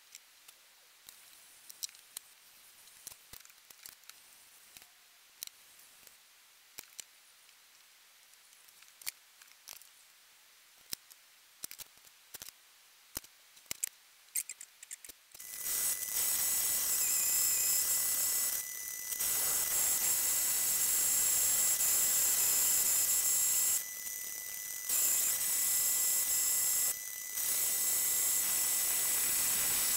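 For about the first half, light scattered clicks and taps of a marker and measuring tool handled on an aluminium plate. About halfway in a metal-cutting bandsaw starts cutting through the thick aluminium plate: a loud, steady running noise with a high whine, dropping away briefly three times.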